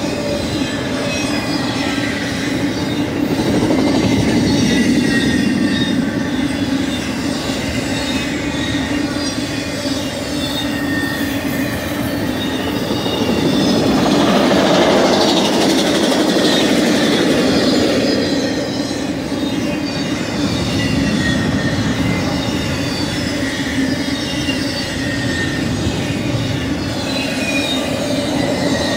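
Intermodal freight cars of a BNSF Z train rolling past at speed: a steady rumble of steel wheels on rail with thin, wavering high wheel squeals, swelling louder about halfway through.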